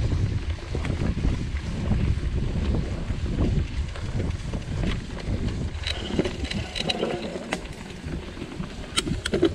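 Wind buffeting the microphone over the rumble of a mountain bike rolling along a dirt forest trail, with a few sharp rattling clicks near the end.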